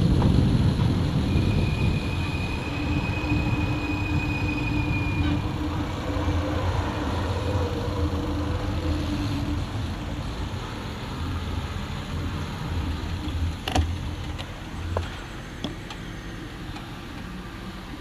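Road traffic: motor vehicles running close by, mixed with wind noise that fades steadily as the bicycle slows. A few sharp clicks in the last few seconds.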